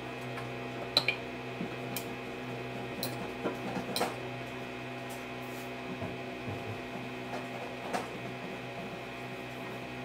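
Samsung front-loading washing machine tumbling a load on its Iron cycle: a steady hum with light clicks and knocks from the clothes turning in the drum, about once a second. The tumbling stops about halfway through and the hum goes on, with one more knock near the end.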